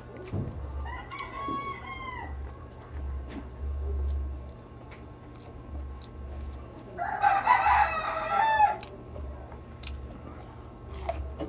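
A rooster crowing twice: a fainter crow about a second in, then a louder, longer one about seven seconds in.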